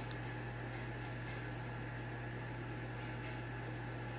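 Steady low hum with an even hiss of room noise, and one faint click just after the start.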